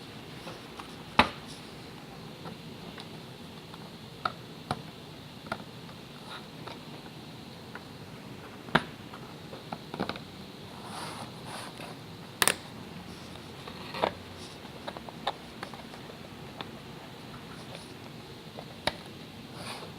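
Parts of a tabletop terrain building kit being handled and fitted together: sporadic sharp clicks and light knocks, about ten at irregular intervals, over a faint steady hiss.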